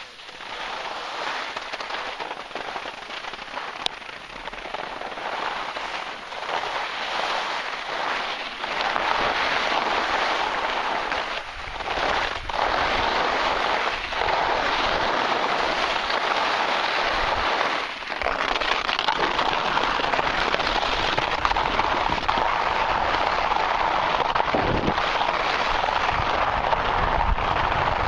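Crackling, scraping hiss of edges sliding over summer snow on a fast run downhill. It grows louder about nine seconds in, dips briefly, then holds loud and steady through the second half.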